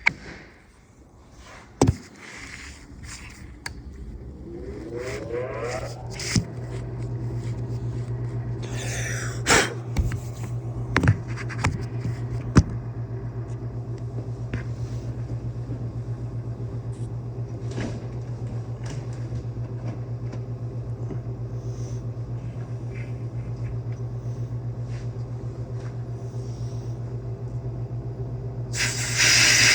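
An electric motor spins up a few seconds in, its pitch rising, then runs with a steady hum. A few sharp knocks of handling come over it, and a loud rush of air hiss starts near the end.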